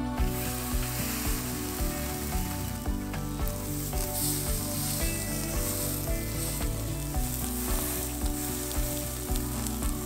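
Thick tomahawk beef steaks sizzling steadily as they sear on a grill over very hot coals.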